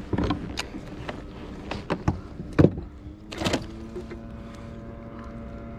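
Knocks and clatters as a largemouth bass is handled in a landing net on a plastic fishing kayak, the fish flopping and the net and gear bumping the hull; the loudest knocks come about two and a half and three and a half seconds in. A steady low hum runs underneath.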